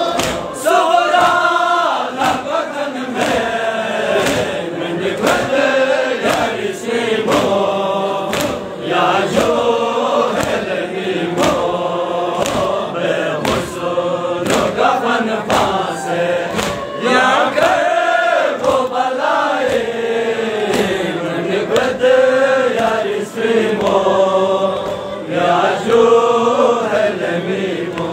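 Men chanting a Balti noha, a Shia mourning lament, with many voices together, over a steady rhythm of sharp chest-beating slaps (matam) from the crowd.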